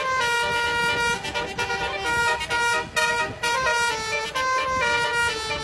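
Basuri 'telolet' musical vehicle horn playing a tune: a string of held horn notes stepping up and down in pitch, with short breaks between some of them.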